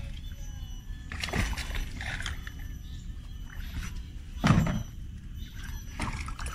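Background music with faint steady tones over a low steady rumble, with a few short knocks about a second in, midway and near the end.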